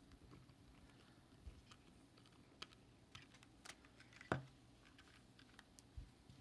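Faint, scattered small clicks and taps over near silence, with one louder click a little after four seconds in.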